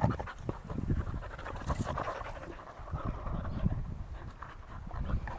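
Several dogs play-wrestling at close range, panting and scuffling in short, irregular bursts.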